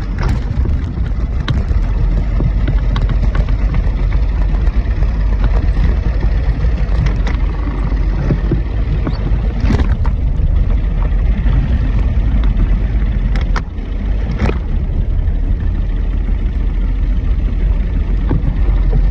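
Boat motor running while the boat is driven: a steady low rumble with wind buffeting the microphone and a few sharp knocks.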